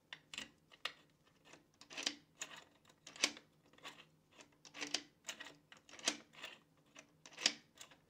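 3D-printed plastic key being turned in a five-pin deadbolt cylinder: a string of irregular clicks and short scrapes, about two a second, as the key and cylinder are worked.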